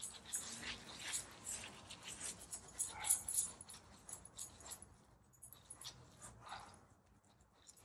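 Silicone pastry brush painting water over a sheet of rice paper on a wooden cutting board: quick, wet swishing and scratching strokes, loudest about three seconds in and thinning out after about five seconds.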